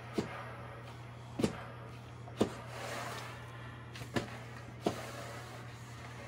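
Shark S1000 steam mop running with a steady low electric hum and a faint hiss, broken by several sharp knocks as the mop's handle and swivel head are worked.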